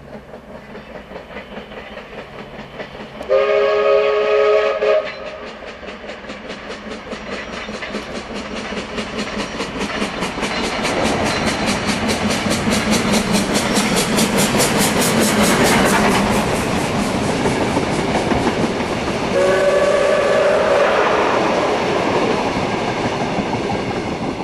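Baldwin-built AC16 class 2-8-2 steam locomotive running past with a rapid, even beat that grows louder as it nears and passes close. Its steam whistle sounds twice, a chord of several notes lasting about a second and a half each time: about three seconds in and again about twenty seconds in.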